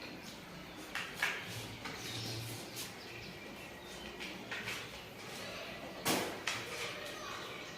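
A person eating chow mein noodles: wet chewing and mouth smacks with several short sharp clicks, the loudest about six seconds in.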